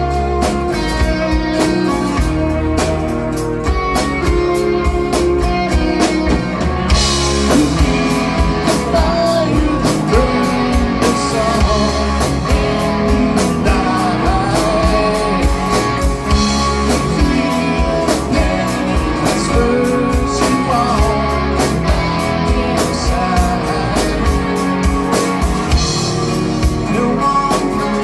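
Rock band playing an instrumental passage with electric guitars and drum kit, a lead line bending and sustaining over the backing.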